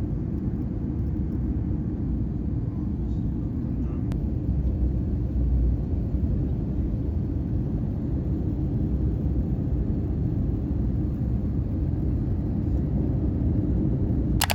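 Steady low rumble of a moving vehicle heard from inside, even throughout with no distinct events.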